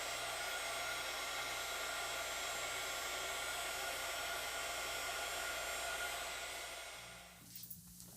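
Hot air gun blowing steadily as it shrinks glue-lined heat-shrink tubing over a wire joint. The sound fades out and stops near the end.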